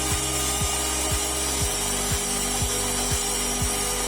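Background music with a steady beat: a kick drum about twice a second under sustained synth tones.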